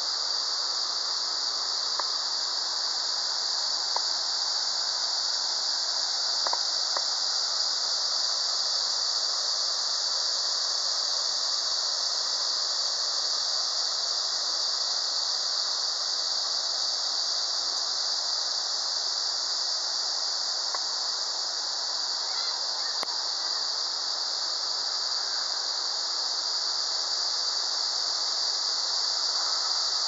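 Cicadas in the forest giving a loud, steady, high-pitched drone, with a rush of water from the small cascades underneath.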